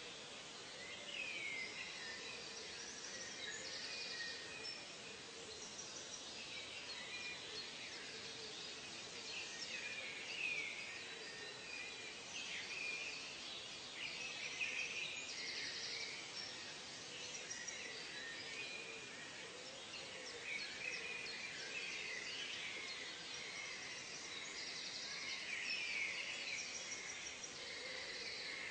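Tropical forest ambience: many birds calling over one another in short rising and falling chirps, with brief buzzing insect trills and a steady background hiss.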